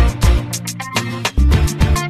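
Background music with a steady beat: drum hits at an even pace over a bass line.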